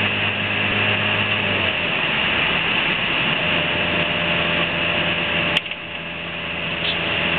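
Toyota Hiace van's diesel engine running steadily while towing a trailer up a hill. About five and a half seconds in there is a sharp click and the engine sound briefly drops, then it builds again.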